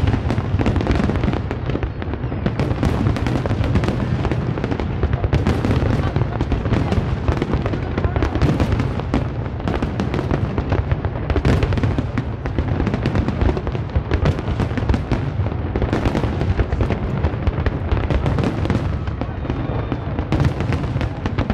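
Aerial fireworks display in a dense, unbroken barrage: many shells bursting over one another in quick succession, bangs and crackle with no pause between them.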